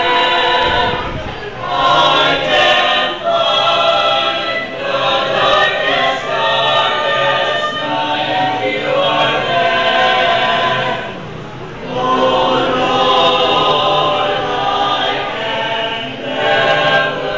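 A small mixed group of men and women singing a hymn together, in long held phrases with short breaks between them, the longest about eleven seconds in.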